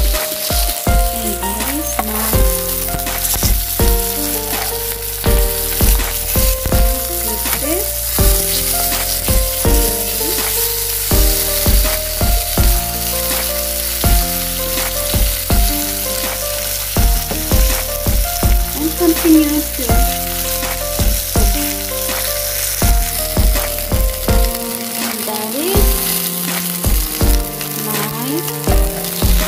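Salmon fillets frying in a hot skillet, a steady sizzle, under background music with a steady beat.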